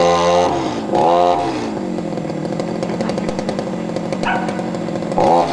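Two-stroke chainsaw revved up and back down three times, at the start, about a second in and near the end, idling in between.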